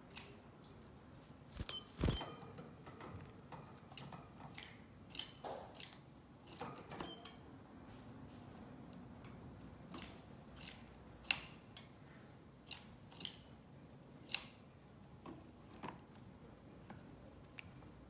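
A canary moving about its cage and nest: scattered sharp clicks and taps at irregular intervals, the loudest about two seconds in.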